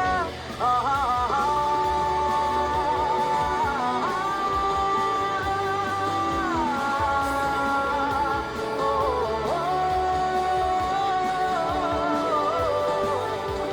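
Background music: a Hindi love song, with a voice holding long, wavering notes and sliding between them over steady instrumental backing.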